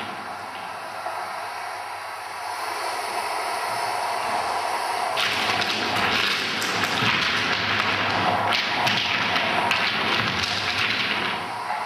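Irregular taps and thumps over a dense rustling, scraping noise that grows louder about five seconds in and eases near the end.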